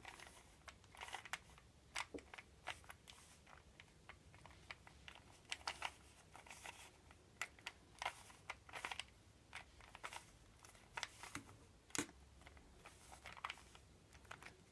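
Plastic Rubik's Cube layers being turned by hand in quick runs: faint, irregular clicks and clacks in flurries as the last-layer corner-twisting move sequence is worked through.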